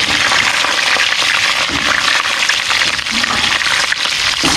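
Whole scored bream frying in hot oil in a pan: a loud, steady sizzle with dense crackling.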